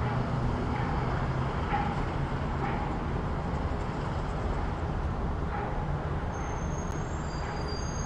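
City street ambience: a steady wash of road traffic with a low rumble of passing vehicles. A thin, high squeal comes in near the end.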